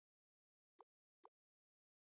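Near silence, broken twice by a brief faint click or blip, about half a second apart.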